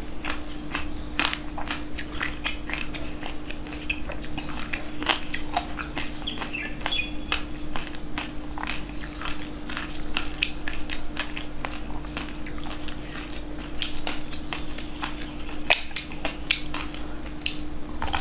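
Close-miked eating sounds: crackling bites into the coated shell of sprinkle-covered ice cream bars, with chewing and wet mouth clicks, over a steady low hum.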